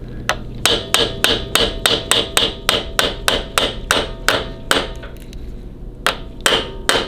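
Hammer tapping a new inner cam bearing into a Harley-Davidson Twin Cam 88 crankcase through a driver made from the old bearing, in a steady run of sharp knocks about three a second, a short pause, then a few more. The taps change from a dull 'dunk dunk' to a ringing 'ting ting', the sign that the bearing has bottomed out in its bore.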